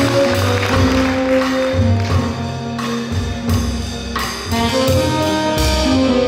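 Small jazz combo playing live: a horn holds long melody notes over a walking upright bass, a drum kit with cymbal strokes, and an archtop electric guitar.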